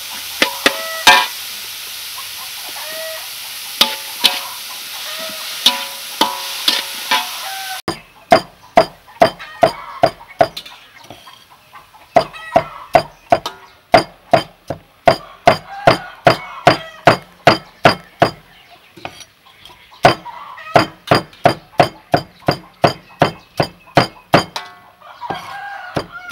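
Metal spatula stirring and scraping vegetables in a sizzling wok, with clinks against the pan. About eight seconds in this gives way to a cleaver chopping crispy fried chicken on a wooden chopping board: sharp, steady knocks, a little over two a second, with two short pauses.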